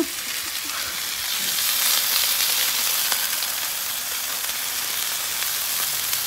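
80/20 ground beef smash burger patties sizzling steadily on the hot ceramic-coated non-stick top of a Pit Boss Ultimate Griddle, as they are pressed flat under parchment paper.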